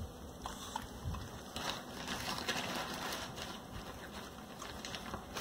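Small dogs chewing crunchy treats: quiet scattered crunches and clicks, busiest in the middle.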